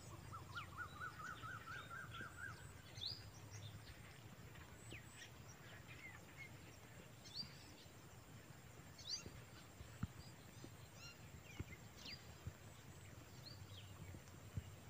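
Faint bird calls in open country: a quick trill that climbs slightly in pitch over the first couple of seconds, then scattered short chirps and sweeping notes, over a low steady background hum.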